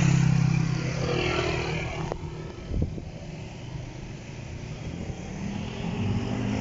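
An engine running nearby, loudest at first and fading over about two seconds, with a single knock a little before the middle. A rising engine hum builds again near the end.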